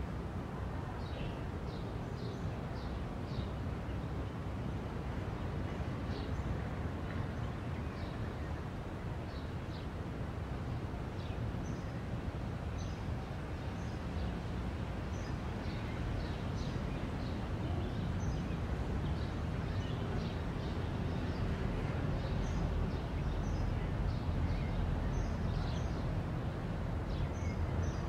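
Small birds chirping in short, scattered calls over a steady background rumble and hiss.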